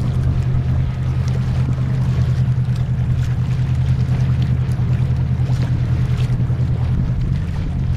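An engine running steadily: a low, even hum with a quick regular pulse.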